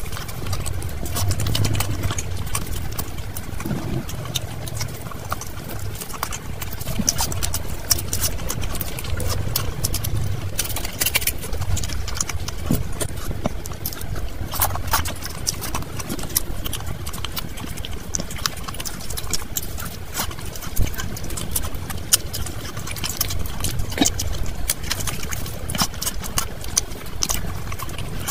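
Close-miked eating by hand: chewing and wet mouth sounds with many sharp, irregular clicks, and fingers squelching through rice and curry gravy.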